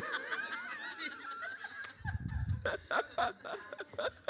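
Congregation laughing, several voices overlapping, fading into scattered chuckles.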